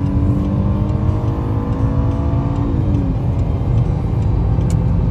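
Jaguar S-Type engine and road noise heard from inside the cabin while accelerating at highway speed. The engine note climbs steadily, then falls about three seconds in at an upshift, over a steady low tyre rumble.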